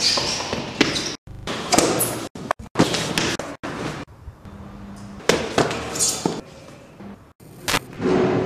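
Series of thuds and knocks from a fall down a staircase, irregular and sudden, broken by several abrupt cuts to silence.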